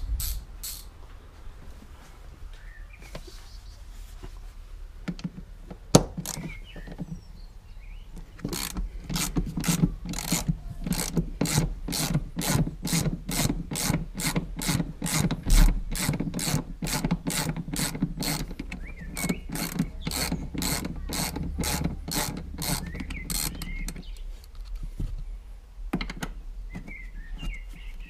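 Hand ratchet wrench clicking in a steady rhythm, about three clicks a second, as it turns a seat-rail bolt; a single sharp knock comes a couple of seconds before the clicking starts, and the clicking stops a few seconds before the end.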